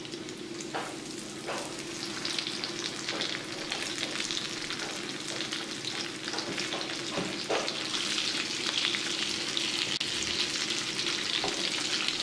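Potato croquettes shallow-frying in cooking oil in a frying pan: a steady sizzle that grows louder as they are turned over, with a few light clicks from the metal fork turning them.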